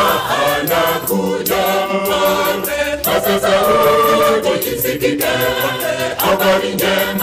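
Mixed choir of men and women singing a Swahili gospel song in harmony, with a steady sharp beat behind the voices.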